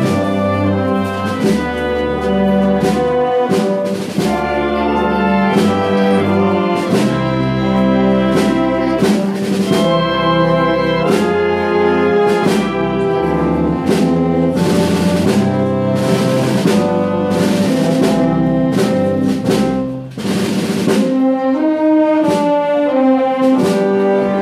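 Brass band playing a march: trumpets and trombones in sustained chords, with a few heavy drum or cymbal strikes in the second half.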